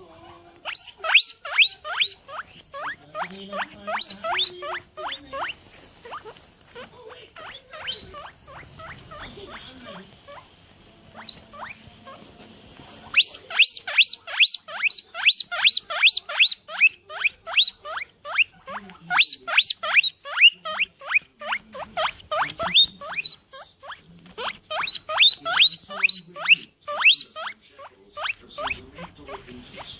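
A small animal squeaking in fast runs of short, high, falling squeaks, several a second. There is a lull for several seconds in the middle, then the squeaking picks up again and runs on steadily.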